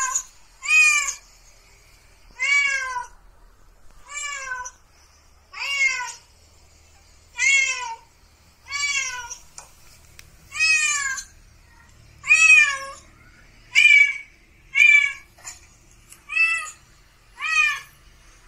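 Recorded cat meows played from a mobile phone: a run of about a dozen near-identical meows, each rising then falling in pitch, one roughly every one and a half seconds.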